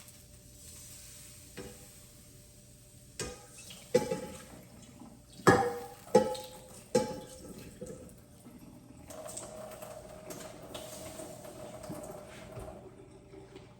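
Kitchen clatter: a pan and utensils knock about five times with a short metallic ring, followed by a few seconds of water running.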